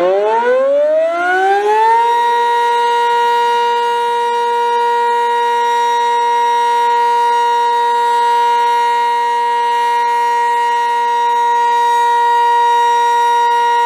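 Sentry 15V2T civil defense siren winding up over about two seconds to full pitch, then holding one steady, loud tone.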